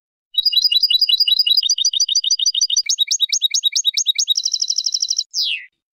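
Small finch singing a song made of rapid trills, about ten notes a second, switching to a new note type every second or so. It ends in a buzzy trill and a short falling whistle.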